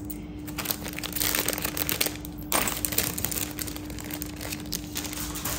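Plastic and paper jewellery packets crinkling and rustling as they are handled, in irregular bursts of crackle.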